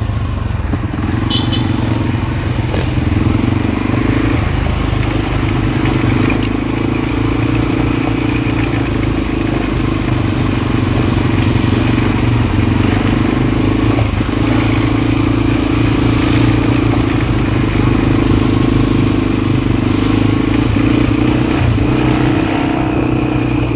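ATV engine running steadily under way, its note holding an even pitch.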